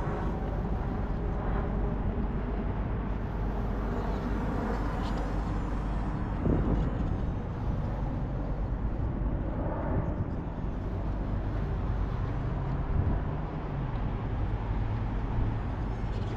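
Steady outdoor background noise: wind on the microphone and a low traffic-like rumble, with no clear single event.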